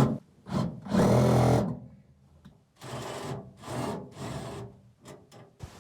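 Power drill driving a self-tapping screw into the bus's sheet metal: one loud whir about a second in, then a few shorter, quieter bursts and some sharp clicks.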